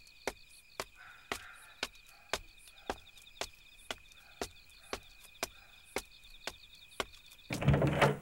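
Insects chirring steadily at night, with a sharp tick about twice a second throughout; near the end a louder thud breaks in.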